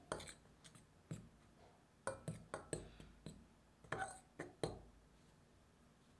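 A metal spoon stirring dry flour, salt and sugar in a glass mixing bowl, with about a dozen irregular light clinks where it strikes the glass.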